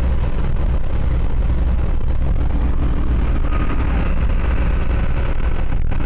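Steady low road and engine rumble of a car driving along an expressway, heard from inside the cabin.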